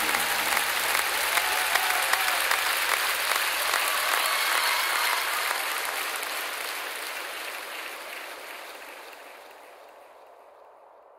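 Applause, a dense patter of clapping that holds steady and then fades out over the last few seconds.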